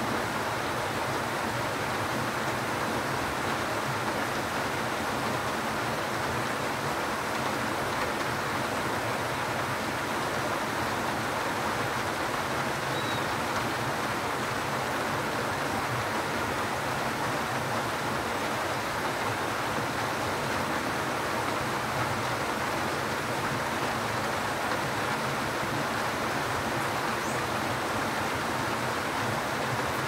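Steady rain: an even, unbroken hiss with no distinct drops or pauses.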